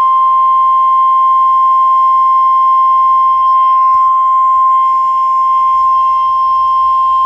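NOAA Weather Radio's 1050 Hz warning alarm tone: a single loud, steady, unbroken tone. The tone signals that a warning message is about to follow, here a severe thunderstorm warning.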